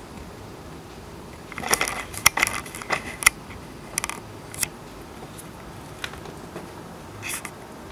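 Steady hiss of heavy rain, with a cluster of sharp clicks and taps about two to three seconds in and a few single clicks later.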